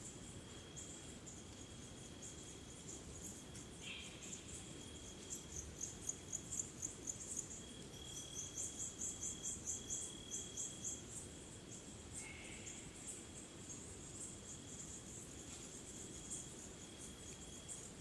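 Night insect chorus of crickets and other insects: rapid, high-pitched chirping pulses, loudest between about five and eleven seconds in, over a steady high trill. Two brief calls stand out, about four and twelve seconds in.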